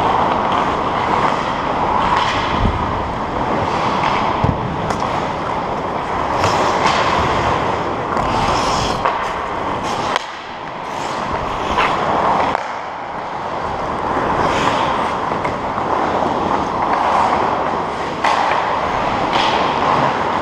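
Hockey skates scraping and carving on rink ice in a steady rushing noise, with scattered sharp clacks of sticks and puck on the ice.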